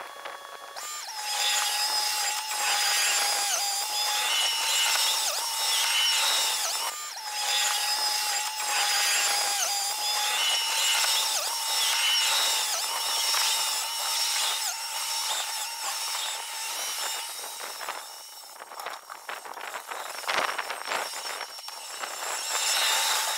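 Takeuchi TL12R2 compact track loader's engine and hydraulics clearing snow, sped up by the time-lapse into a steady high-pitched whine over a busy mechanical clatter. There is a brief break about seven seconds in. After about eighteen seconds, as the loader moves far off, it turns quieter and more broken, with scattered clicks.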